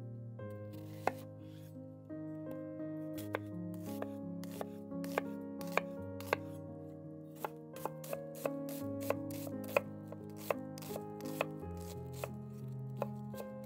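Chef's knife cutting a halved onion on a wooden cutting board: a series of sharp knocks as the blade goes through and hits the board, roughly one and a half a second, starting about a second in.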